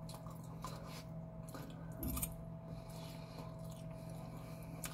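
Quiet eating: a fork scooping in a paper side cup and soft chewing, over a steady low hum.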